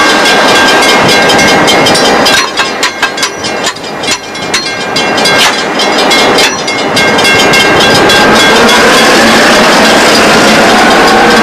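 Freight train passing close by, its wagons rumbling and rattling on the rails; from about eight seconds in a whine rises steadily in pitch.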